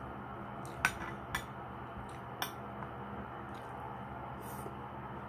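Metal spoon clinking and scraping against a bowl while scooping rice: three sharp clinks in the first two and a half seconds, then a few fainter taps, over a steady low background hum.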